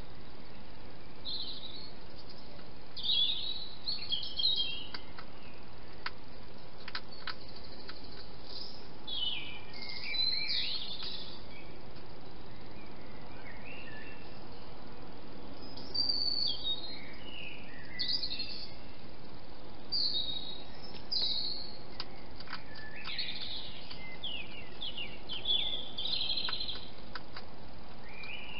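Songbirds singing early-morning song in short high chirping phrases every few seconds, over a steady background hiss. A few faint clicks are scattered through.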